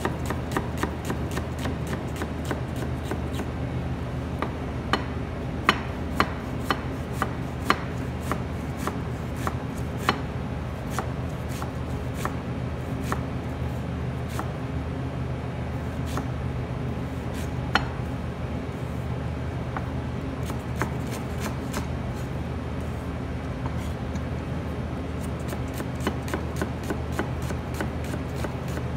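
Kitchen knife dicing an onion on a plastic cutting board: quick, regular strokes of the blade knocking on the board, several a second, with a handful of harder knocks partway through. A steady low hum runs underneath.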